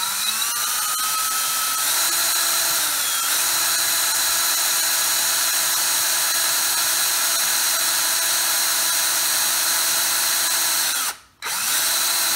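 Electric drill on its low speed, boring a small hole with a depth-stopped bit into a Holley carburetor base plate. The motor whine rises as it spins up, then holds steady, with a brief dip in pitch about two to three seconds in. It cuts out for a moment about eleven seconds in and starts again at once.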